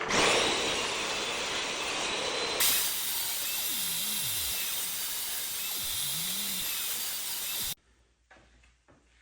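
Table saw running and cutting a groove pass in a drawer side: a steady, loud machine noise that stops abruptly near the end.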